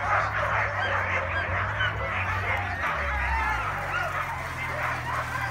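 A pack of excited sled dogs yelping and howling together, a dense chorus of many overlapping high cries: the eager noise of teams waiting to run.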